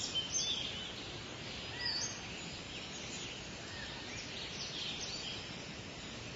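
Small birds chirping, short rising and falling calls scattered over a steady background hiss.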